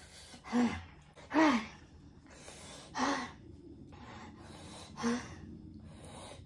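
A man gasping four times, short breathy gasps each with a brief falling voiced edge, from the burn of very spicy hot chicken in his mouth and throat.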